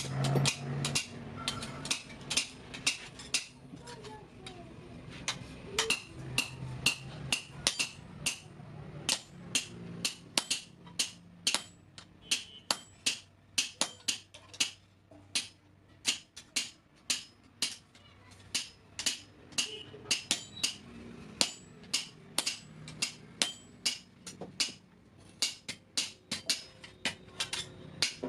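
Blacksmith's hammer striking steel on an anvil in a steady forging rhythm, about two to three blows a second with a bright metallic ring, broken by a few short pauses.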